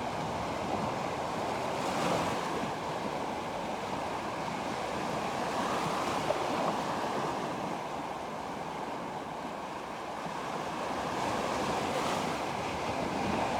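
Sea waves washing onto the shore in a steady hiss that swells and eases every few seconds, with some wind on the microphone.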